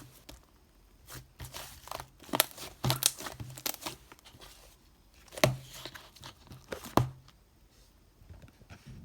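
Irregular crinkling and crackling handling noise, with sharp crackles loudest about two and a half, three, five and a half and seven seconds in, then quieter.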